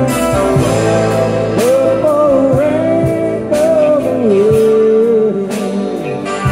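Live band playing a slow rock ballad: electric and acoustic guitars, pedal steel, bass and drums keeping a steady beat. A male lead voice sings long notes that slide and bend over the top.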